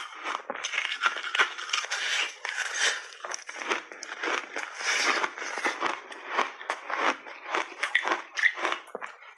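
A person biting into and chewing a block of red peach-berry flavoured ice: dense, irregular crunching and cracking of the frozen ice.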